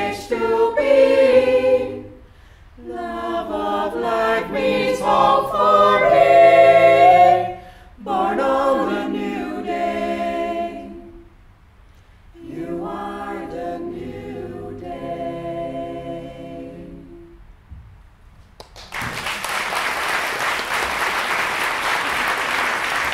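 Mixed a cappella choir singing the closing phrases of a song in four phrases with short breaks, the last chord fading away. Near the end the audience breaks into applause.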